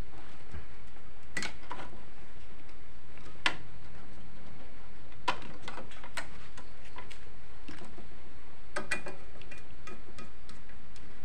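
Scattered light clicks and taps of plastic and metal as a CRT television's deflection yoke is handled and fitted onto the picture tube's neck. A few quick clicks come near the end as a screwdriver works the yoke clamp. A steady low hum runs underneath.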